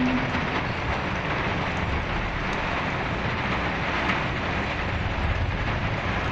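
Heavy rain on a car, heard from inside the cabin: a steady hiss, with a low vehicle rumble underneath.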